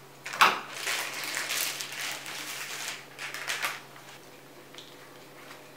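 Scissors snip open a packet of ready-made puff pastry with one sharp snip about half a second in, then the wrapper rustles and crackles for a couple of seconds as the rolled pastry is worked free, with a shorter rustle around three and a half seconds.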